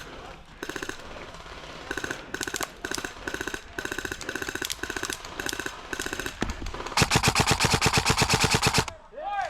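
Airsoft electric guns firing a string of short bursts of rapid shots, then one longer, louder burst about seven seconds in, at around fifteen shots a second.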